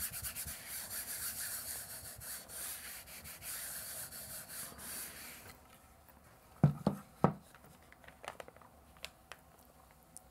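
A round hand baren rubbed briskly back and forth over thin paper on an inked printing plate, a steady scratchy rubbing of about three or four strokes a second, burnishing the print to pick up the etched lines. The rubbing stops about halfway through, then come a few sharp knocks and faint paper clicks.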